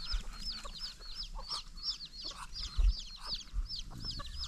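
A brood of young chicks peeping continuously: a quick run of short, high chirps, about four or five a second.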